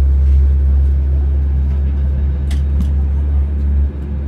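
Steady low rumble inside the cabin of an Airbus A320neo taxiing, engines and airframe running at taxi speed, with a couple of faint clicks about two and a half seconds in.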